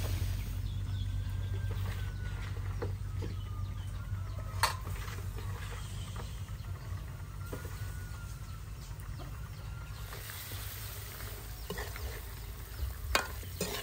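Chicken feet frying in oil with kroeung paste, a soft sizzle over a low steady hum, with a few sharp knocks of a spatula against the pan, once early and several times near the end.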